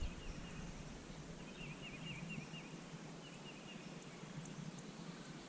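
Faint bird song: a quick run of five or six chirps about one and a half seconds in, then a shorter run about a second later, over a soft outdoor hiss.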